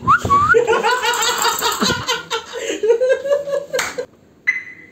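People laughing for about four seconds, several voices at once, ending abruptly.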